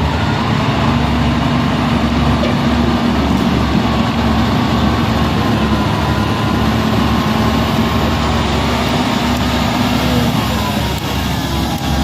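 Caterpillar 140H motor grader's diesel engine running steadily as the grader drives and cuts soil with its blade. A held tone in the engine note fades out near the end.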